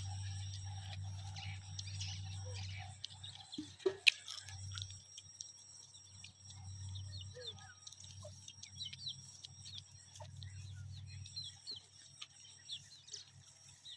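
Birds chirping in short calls over a steady high-pitched whine. A low hum comes and goes underneath, and there is a sharp click about four seconds in.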